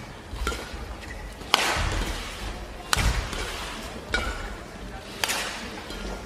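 Badminton rackets striking the shuttlecock back and forth in a rally: three loud smacks about a second and a half apart, with lighter hits between, each ringing on in the arena's echo.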